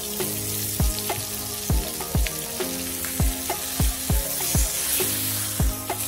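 Chicken sizzling in hot oil in a frying pan, the sizzle starting as the lid comes off, with the pieces scraped and turned by a silicone spatula. Background music with a steady drum beat plays throughout, its kick drum the loudest sound.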